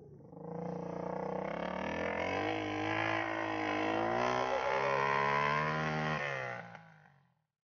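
Dirt bike engine running with its revs rising and falling, fading out about a second before the end.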